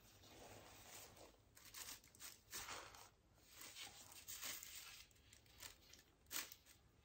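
Near silence with faint, irregular rustling and handling noises from gloved hands moving a painted wooden board on a turntable, and one sharper tap about six seconds in.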